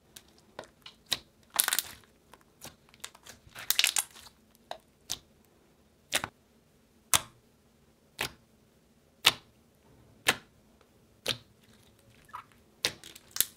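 Thick glossy slime squished, poked and stretched by hand: a couple of crackly squishes in the first few seconds, then single sharp clicking pops about once a second.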